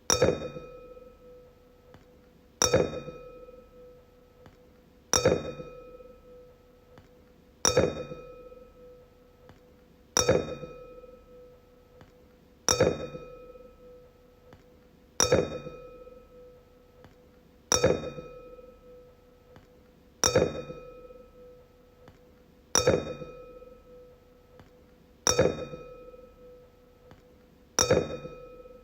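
A wine glass struck again and again, about once every two and a half seconds, twelve strikes in all. Each strike gives a sharp clink and then a clear ringing tone with higher overtones that fades out before the next strike.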